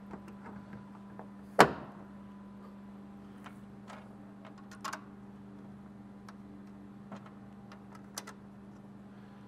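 Toyota Tacoma taillight housing being pushed into its mount, with one sharp snap about a second and a half in as it seats, then a few faint clicks from handling. A steady low hum runs underneath.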